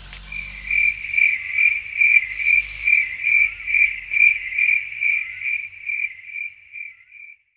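Cricket chirping sound effect, the comic cue for an awkward silence: a high, even chirp repeating about twice a second, fading away near the end.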